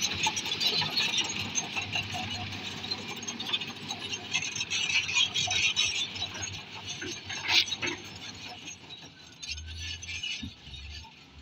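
Bulldozer at work: a steady hiss of machine noise with scattered metallic clinks and rattles, fading toward the end.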